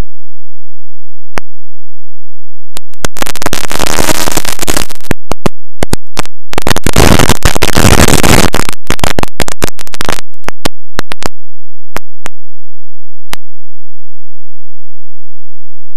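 Faulty camera audio: a dead track broken by scattered sharp clicks and two bursts of harsh noise, one about three seconds in and a longer one from about six and a half to ten seconds.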